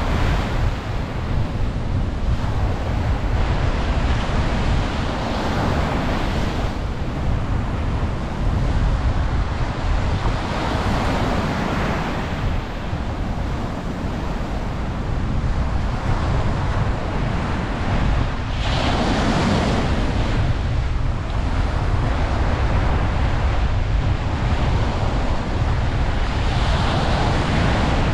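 Ocean waves breaking and washing up a beach, the surf swelling every several seconds over a steady low rumble.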